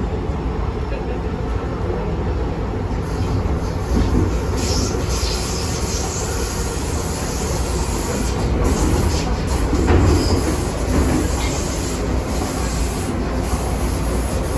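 MTR M-train electric multiple unit heard from on board while running along the track: a steady, loud rumble of wheels on rail and running gear. A patch of high-pitched noise comes in from about three seconds in to about seven, and again briefly around ten seconds.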